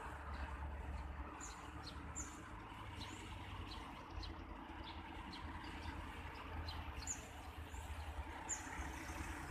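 Birds chirping in short, sharp, repeated high calls over a low steady rumble.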